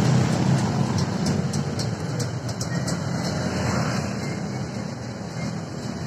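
Low, steady engine rumble from road traffic: a tipping dump truck and motorcycles passing close by. A string of sharp ticks runs from about one to three seconds in.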